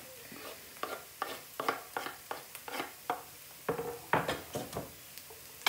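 Metal spoon scraping and tapping on a wooden chopping board, pushing chopped coriander off into a glass mixing bowl: a quick, irregular run of clicks and scrapes, a few with a brief ring.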